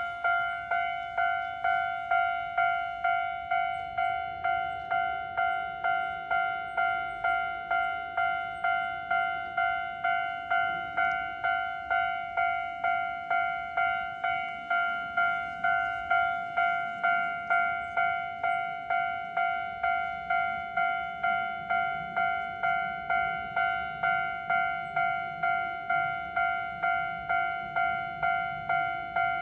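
Japanese level crossing warning bell ringing steadily, a repeated 'kan-kan' clang at about one and a half strikes a second, signalling that a train is approaching.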